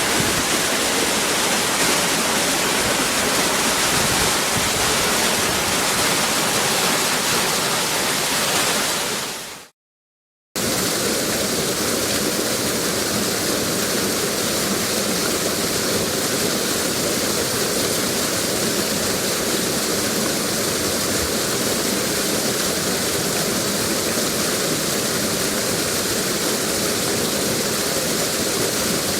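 Steady rush of a waterfall's falling water. It fades out about nine and a half seconds in, there is a second of silence, then a similar rush of water starts again and runs on steadily.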